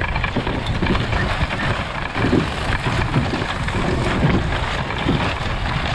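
A vehicle driving across rough pasture, towing a drag of chain-link fence weighted with a wooden pallet that scrapes and rattles over the ground, a steady rumbling noise.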